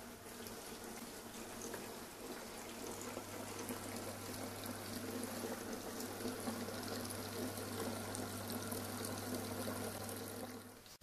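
Cooled beer wort running from the brew kettle's tap through a clear hose and splashing into a foaming fermenting bucket: a steady trickling pour over a steady low hum.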